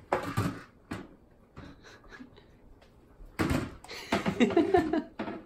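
Hard plastic knocking and clattering as a cat rummages in a plastic mesh basket of toys inside a clear plastic tub: a quick cluster of knocks at the start, a single knock about a second in, then a longer, louder run of clatter from about three and a half seconds in to near the end.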